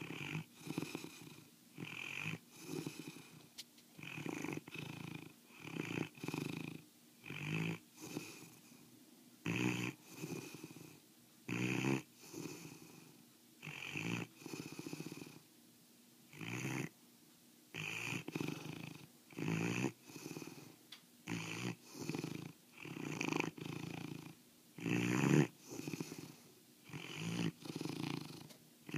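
Mastiff snoring, a snore on each breath coming about every one to two seconds in a regular rhythm.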